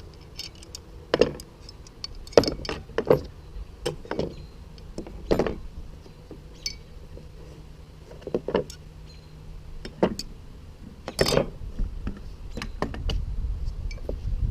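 Thin steel hub cone spanners clinking and knocking against each other and the kit as they are handled, a dozen or so irregular sharp clicks.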